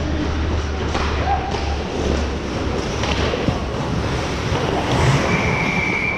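Ice hockey play in an indoor rink: scattered knocks and thuds over a steady low arena hum. A steady high whistle tone starts about five seconds in and runs past the end.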